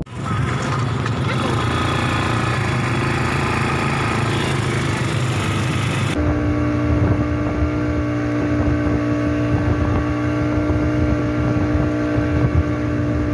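Motorboat engine running steadily while towing a banana boat, with wind and water noise. About six seconds in the sound changes abruptly, and after that a steady, even engine tone carries through.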